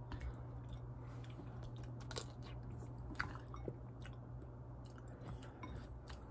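A person chewing a mouthful of curry rice close to the microphone: small, soft mouth clicks at irregular intervals over a faint steady low hum.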